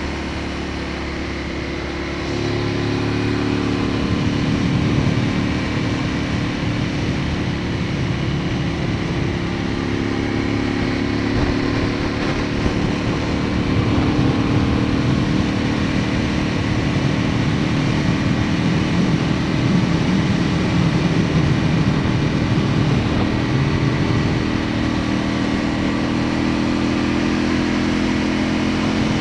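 Aprilia Tuono motorcycle engine running at road speed, heard from on board over steady wind and road noise. The engine note steps up about two seconds in as the bike pulls harder, then holds fairly steady.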